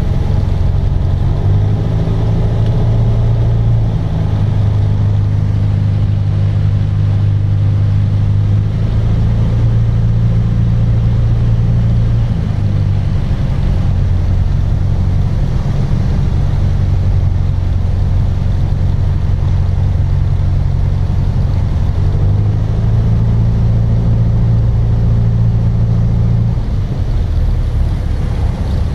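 Piston engine of a light single-engine propeller aircraft heard from inside the cockpit, running steadily at reduced power on the landing approach, its note shifting slightly a few times as the throttle is adjusted. Near the end the steady engine note drops away as power comes off for the landing.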